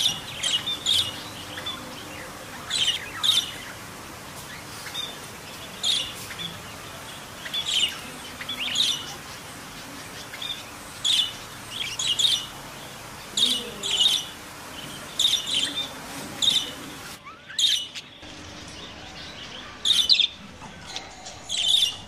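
Budgerigars chirping: short, sharp calls in twos and threes, coming every second or two, with a brief break a little past the middle.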